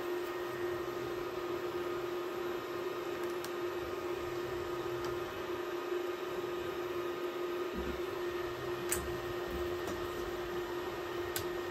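Steady electrical hum with one constant tone over a faint hiss, broken by a few faint ticks.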